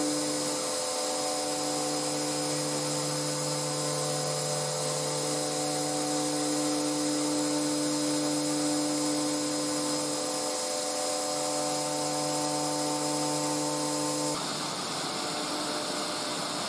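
DIY CNC router spindle running steadily as it mills 6 mm aluminium plate, a hum of several steady pitches over a hiss. The lower tones drop out briefly a few times, and the sound shifts about 14 seconds in.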